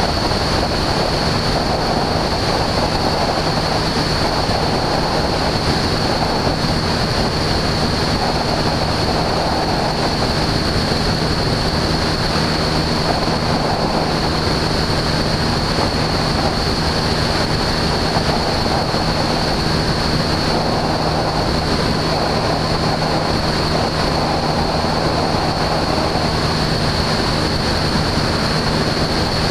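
Husky A-1C light aircraft in cruise: the piston engine and propeller drone steadily under a broad rush of air, with a thin steady high tone above.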